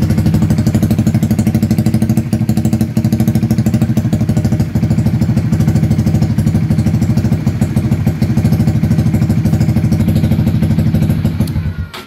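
Honda CB150R Streetfire's single-cylinder four-stroke engine idling steadily with an even, fast pulse, then stopping at the very end.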